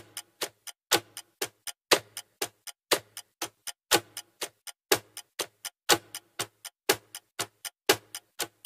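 Clock-ticking countdown sound effect: about four sharp ticks a second, the first of each second louder with a low thud under it, one beat per number counted down.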